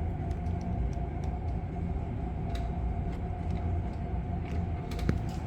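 Steady low rumble with a faint constant hum above it, and a few light clicks and taps scattered through it.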